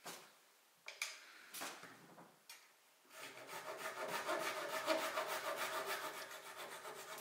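A thin, flexible steel blade held flat against a dark-wood frame and worked quickly back and forth, trimming a protruding peg flush, in fast, even strokes starting about three seconds in. Before that, a few light knocks as the piece is handled.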